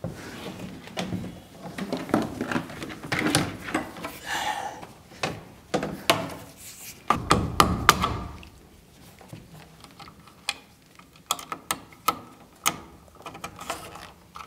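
Scattered knocks and light taps on wood framing as Romex electrical cable is run and fastened along a stud, with a run of sharper taps in the last few seconds.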